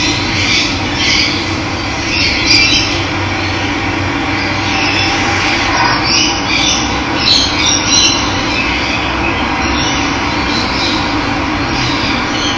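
Steady rush of running water, with small birds chirping and calling over it again and again.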